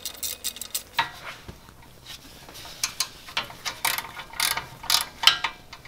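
Hand socket ratchet clicking as the nuts holding the rear axle into the axle housing are backed off, in quick runs of clicks with a pause in the first half.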